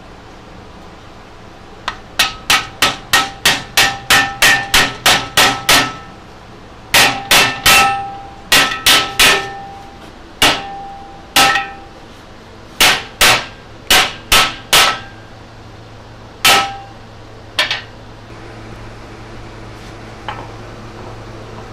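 Claw hammer driving curved wooden felloe segments into a steel handcar wheel tire. It strikes in quick runs of sharp blows, about three a second, each ringing briefly, then a few single blows before they stop a little past three-quarters of the way through.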